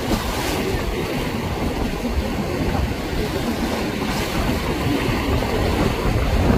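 Steady rush of wind and choppy water with a low rumble, as a center-console boat runs through the waves, throwing spray off its bow.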